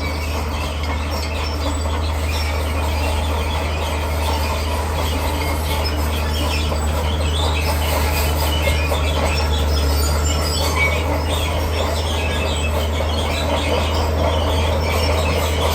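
Komatsu D41P crawler bulldozer working: a steady low diesel drone with the clank and squeal of its steel tracks and the grinding scrape of rock being pushed.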